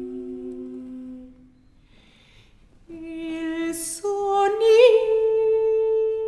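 After a low held note dies away and a short pause, a soprano voice sings slow sustained notes that step upward, one swelling with vibrato, with soft hissing consonants between them.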